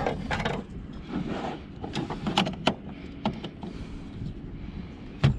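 A series of irregular sharp clicks and knocks from hands working on the car, the loudest right at the start and another just before the end, over a low steady background rumble.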